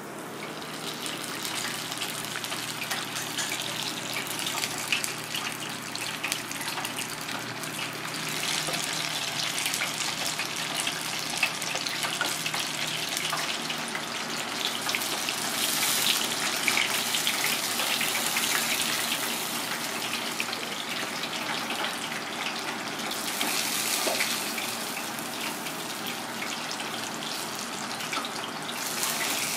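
Breaded fish cutlets deep-frying in hot oil: a dense, steady crackling sizzle that swells a little in the middle.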